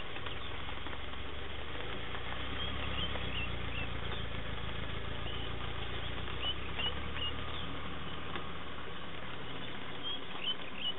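Light rain pattering steadily, with short high bird chirps several times over it and a low steady rumble underneath.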